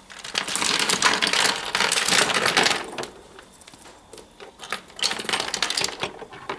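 A bagful of lipstick tubes and lip glosses poured out onto a wooden floor, clattering together for about three seconds. Scattered clicks follow as the tubes are pushed around by hand, with another short burst of clatter about five seconds in.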